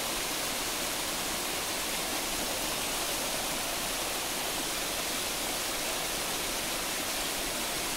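Steady rushing of a stream and small waterfall, an even noise with no breaks.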